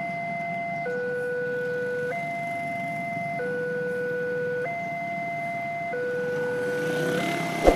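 Railway level-crossing warning alarm from the signal post's loudspeaker, warning that a train is coming while the barriers are down. It is an electronic two-tone signal that switches between a higher and a lower tone about every second and a quarter. A single sharp knock sounds near the end.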